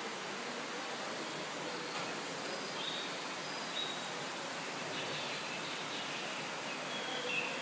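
Steady rushing hiss of a tropical greenhouse's ambience, with a few faint, short, high bird chirps scattered through it.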